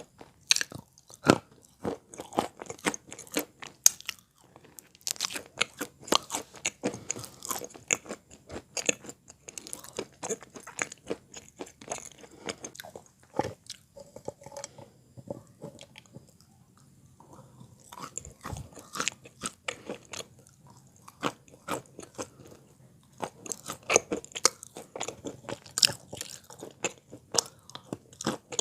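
Close-miked biting and chewing of wet chalk: dense, dull crunches in quick succession. There is a short lull about halfway through, then the crunching resumes.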